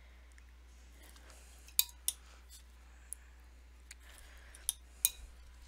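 A handful of short, sharp light clicks and taps, about five spread irregularly over the few seconds, the loudest about two seconds in and near the end, over quiet room tone.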